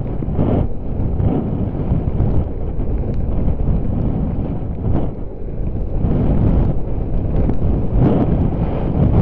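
Wind buffeting a helmet camera's microphone during a fast descent through deep powder snow, mixed with the rush of skis in the snow. The noise swells briefly three times: near the start, about halfway, and near the end.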